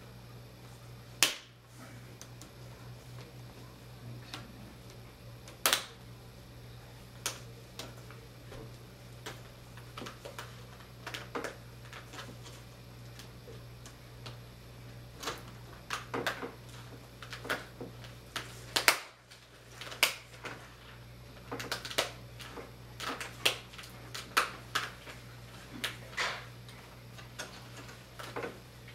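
Plastic screen bezel of a Gateway NE56R27U laptop being pried off by hand: irregular clicks and snaps as its clips let go, a few sharp ones and many small ones, over a steady low hum.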